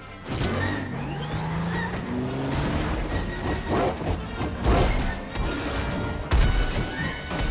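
Film sound mix of racing car engines revving and passing, with heavy crash impacts about five and six and a half seconds in, under orchestral score.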